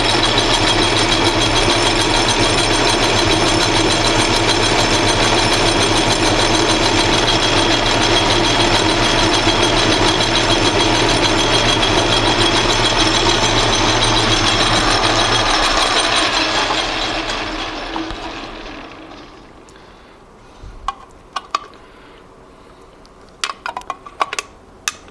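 Atlas metal lathe running steadily as it turns a brass rod; about fifteen seconds in the motor is switched off and the spindle winds down over a few seconds. A few light metal clicks follow near the end as a part is handled at the chuck.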